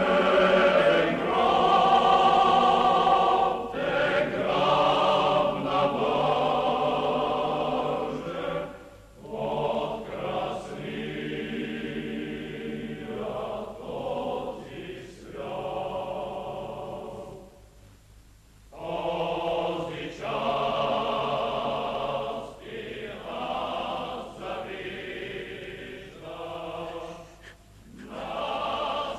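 A choir singing slow, held phrases, with short breaks between them; loudest in the first few seconds.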